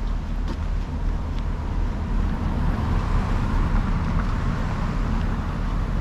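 Road traffic: tyre noise of a car passing on the adjacent two-lane road, swelling about halfway through and then fading, over a steady low rumble.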